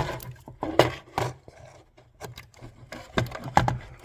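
Pliers working a red wire's connector off a garage door opener control board: a string of sharp clicks and knocks with some scraping.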